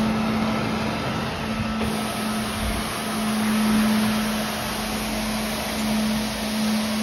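Tennant T7 ride-on floor scrubber running steadily while it scrubs and picks up an oil spill on concrete: a constant hum at one pitch under an even rushing noise.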